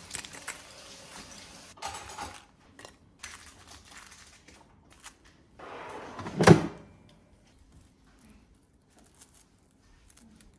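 Kitchen tongs clattering and scraping as breaded chicken pieces are lifted out of an air fryer basket into a bowl, with one sharp knock about six and a half seconds in, then only small handling ticks.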